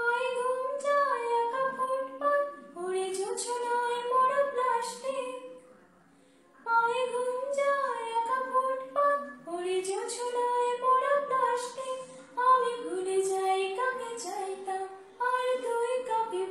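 A woman singing a Bengali song unaccompanied, in melodic phrases with sliding pitch. There is a short pause about six seconds in.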